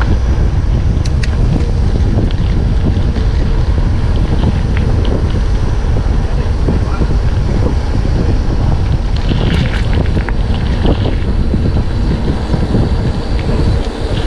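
Wind buffeting the microphone of a camera on a mountain bike being ridden, a loud steady rumble, with a few short clicks and rattles about nine to eleven seconds in.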